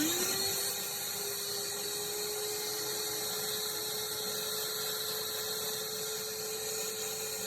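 Ridgid WD0319 cordless 3-gallon wet/dry shop vacuum switched on, its motor spinning up with a rising whine in the first half second, then running steadily at full speed with a strong rush of air.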